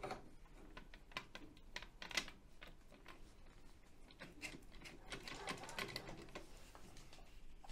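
Faint, irregular clicks and light taps of EcoFlow solar tracker parts being handled and fitted together during assembly.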